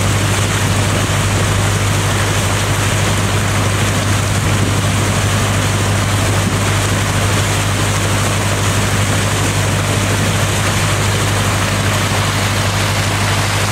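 A sailing yacht's engine drone under way: a steady low hum over an even rush of wind and water.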